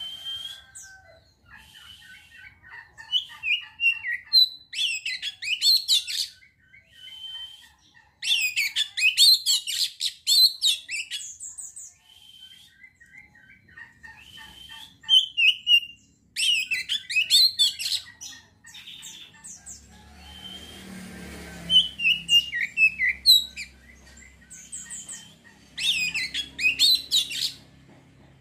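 Oriental magpie-robin (kacer) in full song: several bursts, each a couple of seconds long, of fast, varied whistled phrases, with short single whistled notes between them. This is the kind of song used as a lure to stir up drive and aggression in other kacer. A brief low rushing noise comes about two-thirds of the way through.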